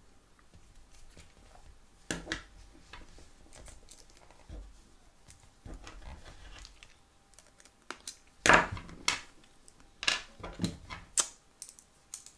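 Scattered small clicks and knocks from a liner-lock folding knife and a small screwdriver being handled during reassembly. They are faint at first; a sharp click about two-thirds of the way in is the loudest, followed by a few more clicks in quick succession.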